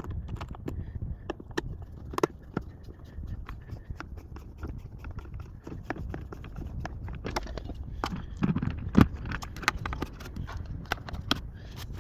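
Irregular clicks, knocks and scrapes of objects being handled, over a low rumble, with a louder knock about nine seconds in.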